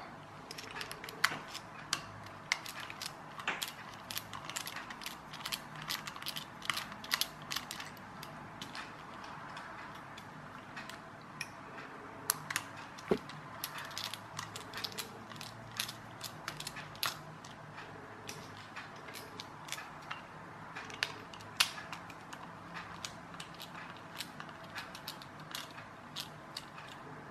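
Small screwdrivers working at the plastic gearbox housing of a toy RC car: irregular light clicks and scrapes of metal tool tips on plastic as it is pried and unscrewed.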